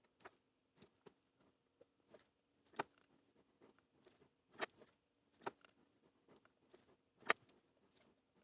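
Faint, scattered small clicks and taps of LED leads and hand tools being handled while soldering LEDs into a ring, the loudest about seven seconds in, over a faint steady hum.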